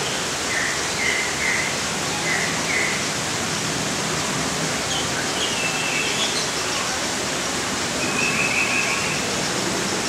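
Steady hissing rush of noise, like falling water, with small bird chirps over it: five short chirps in the first three seconds, a few higher notes in the middle, and a longer buzzy call near the end.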